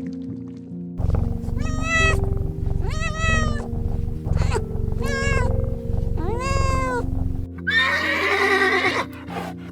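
An animal calling over background music with a steady beat: five high cries that each rise and fall, then a rougher, longer call near the end.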